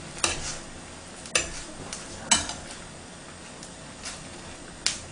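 Metal tongs clinking against a stainless steel pan while stirring noodles in boiling water: four sharp clinks over the steady bubbling of the pot.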